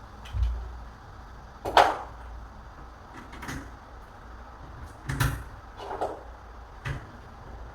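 Knocks and clunks of a room door being worked on during repair: about six separate hits, the loudest a little under two seconds in.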